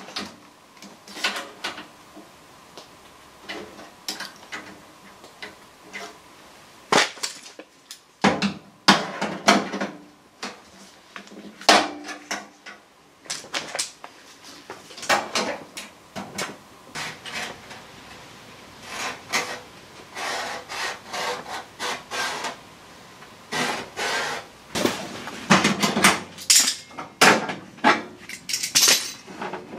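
Irregular metallic clanks, clicks and knocks of a sheet-steel wheel-arch repair panel being handled, slotted into place and clamped with locking pliers.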